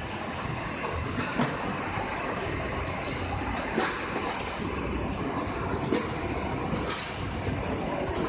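Sludge press machine at a wastewater treatment plant running: a steady mechanical rumble and hiss with irregular sharp clanks and knocks every second or two.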